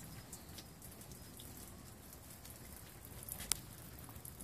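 Rain falling steadily, with scattered drops ticking and one sharp tap about three and a half seconds in.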